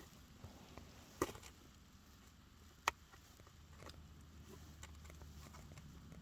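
Two sharp clicks about a second and a half apart, the first with a short ring after it, and a few fainter ticks, over a low steady hum.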